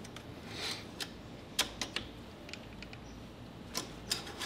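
A few light clicks and scrapes as an engine oil dipstick is slid down into its tube and seated, to read the oil level.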